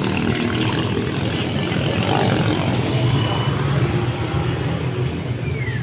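Air-cooled gasoline engine of a racing outrigger banca running loud and fast, a rapid steady engine sound, a little louder in the middle.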